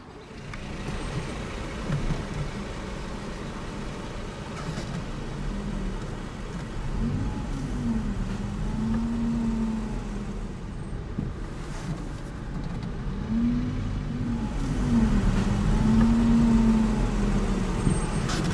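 A car engine over a steady low rumble. Its pitch rises and falls twice, as when pulling forward in a queue and easing off. The sound grows louder toward the end.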